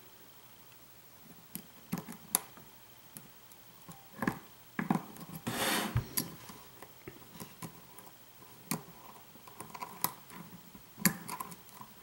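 Scattered light metallic clicks and scrapes of a hook pick probing the pins inside a lock's keyway under tension, searching for the pin that is binding, with a brief rustling swell about halfway through.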